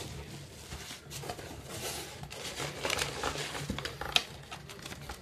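Paper packing and a cardboard box rustling and crinkling as a parcel is unpacked by hand, in irregular crackles, with one sharp click about four seconds in.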